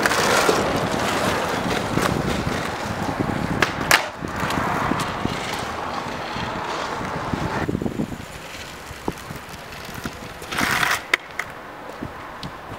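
Skateboard wheels rolling over smooth concrete, with two sharp clacks about four seconds in. The rolling fades after about eight seconds, and a short scraping burst comes near the end as the board reaches the camera.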